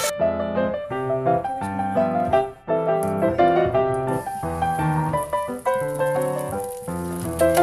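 Background piano music, a light melody of quick stepped notes, with a faint steady hiss coming in about four seconds in.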